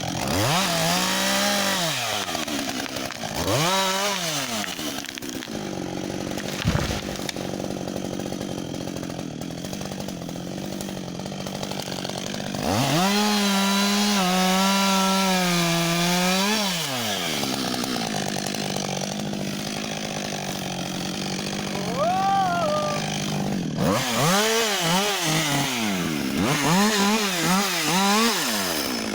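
Husqvarna 562 XP two-stroke chainsaw idling and being revved. It gives two quick revs near the start, holds a high rev for about four seconds midway, then drops back to idle. Near the end comes a run of short, quick throttle blips.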